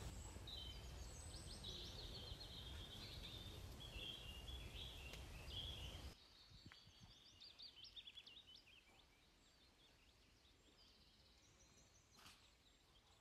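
Faint birdsong: scattered short chirps and trills over a low steady background that drops away about six seconds in.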